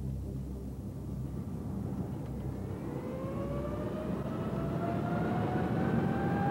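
Jet engine spooling up: a low rumble that grows steadily louder, with a rising whine coming in about halfway through.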